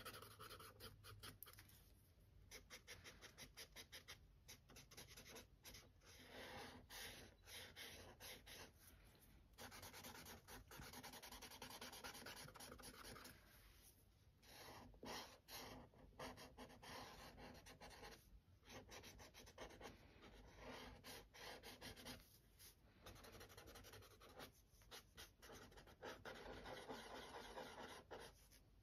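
Faint scratching of a pencil shading on textured sketchbook paper that has a fine-sandpaper tooth. It comes as quick back-and-forth strokes in bursts of a few seconds, with short pauses between them.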